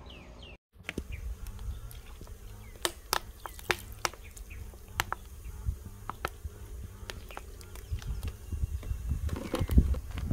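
Scattered sharp clicks and ticks over a low outdoor rumble, the small sounds of cooking at a pot of soup.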